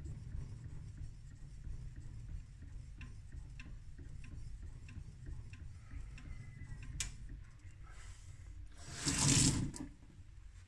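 Back of a laminated Japanese steel blade being rubbed back and forth flat on a wet whetstone during uradashi, a low steady grinding with faint clicks about twice a second. About nine seconds in, a brief louder rush of water noise lasting under a second.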